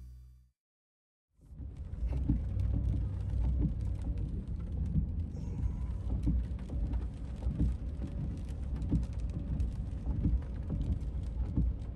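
Rain ticking on a pickup truck's windshield and roof, heard from inside the cab of a Ford F-150 driving on wet streets, over a steady low road rumble. It comes in about a second in.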